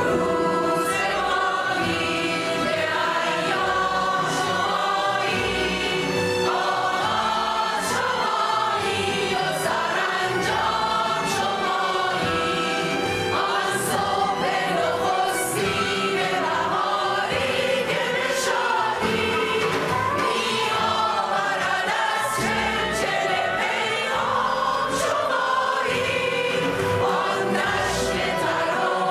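Mixed choir singing a Persian choral song in full voice, accompanied by a chamber orchestra of strings and piano.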